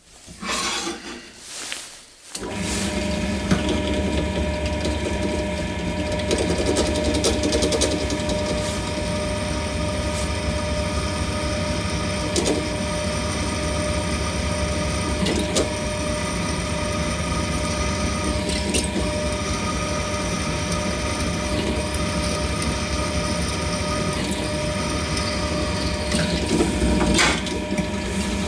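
Pillar drill (bench drill press) switched on about two seconds in and running steadily, its motor humming with a few constant tones. A handful of sharp knocks land over it.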